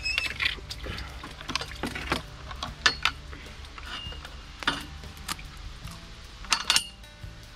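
A well-drilling sludge bailer tube being hauled by hand up out of a plastic well casing, knocking and scraping against the pipe rim in irregular clacks, with some water sloshing.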